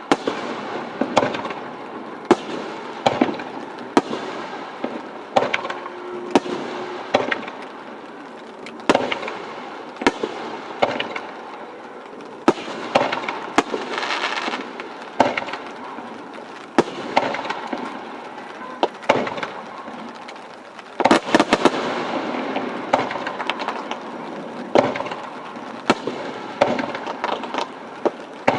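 Aerial firework shells bursting one after another, a sharp bang every second or so with crackling between, and a dense volley of bursts about three-quarters of the way through.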